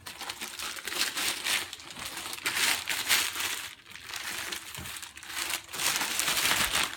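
Packaging crinkling and rustling as it is unwrapped by hand, in uneven bursts with short pauses.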